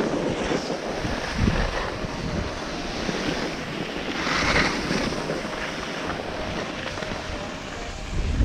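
Wind rushing over the microphone during a downhill run, with the hiss and scrape of edges sliding on packed snow; one louder scrape comes about four and a half seconds in.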